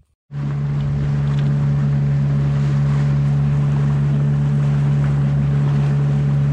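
Fishing boat's engine running at a steady speed: a constant, even drone with a rushing noise over it, starting abruptly.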